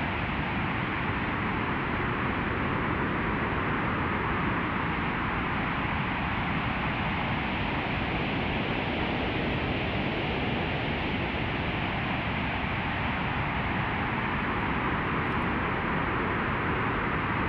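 Synthesized weather ambience built from white noise in Ableton, playing as a steady, even rush of noise with the highs cut off by a low-pass filter. The tone shifts slowly in the middle range.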